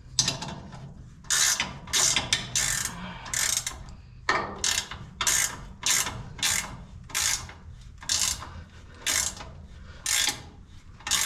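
Hand ratchet wrench clicking in quick repeated strokes, about two a second, running mount bolts in.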